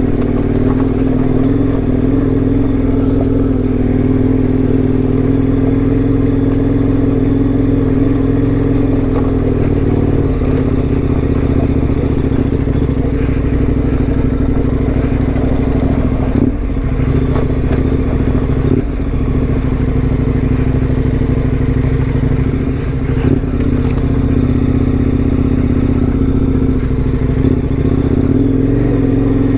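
KTM 1090 Adventure R's V-twin engine running steadily as the motorcycle is ridden over a bumpy dirt trail. There are a few brief drops in the engine note past the middle.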